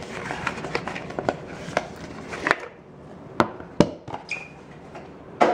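Hard plastic card holders and a shrink-wrapped wooden box being handled and set down on a tabletop: a flurry of light clicks and rustling, then a few sharp knocks.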